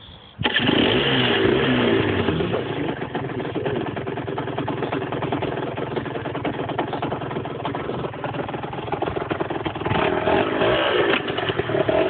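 Aprilia RS 125's single-cylinder two-stroke engine starting about half a second in and blipped up and down a few times. It then runs steadily and is revved again near the end. The bike is restricted.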